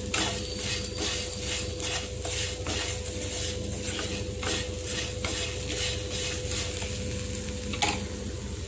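Wooden spatula stirring and scraping dry-roasted flattened rice (aval) with nendran banana pieces and grated coconut around a nonstick frying pan, a steady run of short strokes about three a second. A steady low hum runs underneath.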